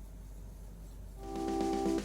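Faint low hum, then keyboard music fades in a little over a second in, as held chords that swell in loudness.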